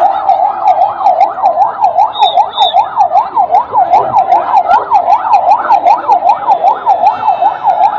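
Electronic emergency siren sounding a fast yelp, its pitch sweeping up and down about three times a second.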